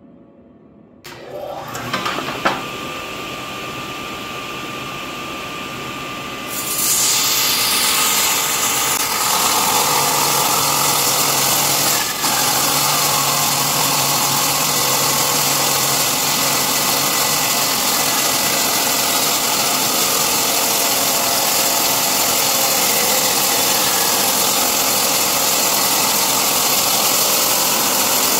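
Table saw with a 10-inch 40-tooth blade starting up about a second in and running free, then cutting a shallow slot in aluminum sheet from about six and a half seconds on: a loud, steady, high-pitched cutting noise as the sheet is fed slowly across the blade.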